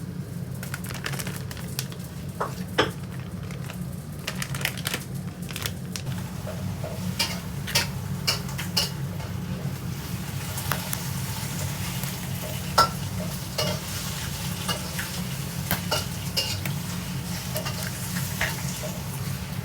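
Food being stirred with a utensil, with irregular clicks and knocks against the dish and a hiss that grows from about halfway through, over a steady low hum.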